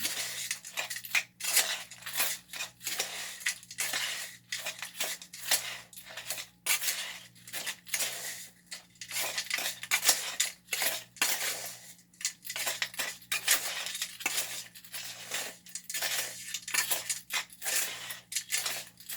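A spoon stirring and scraping dry concrete mix of Portland cement, sand, gravel and fiberglass in a container, with quick irregular strokes about two a second and gritty scrapes and clinks against the container's sides.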